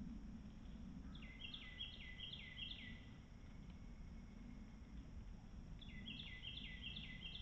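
A songbird singing two phrases of quickly repeated notes that step down in pitch, one about a second in and another near the end, over a steady low rumble.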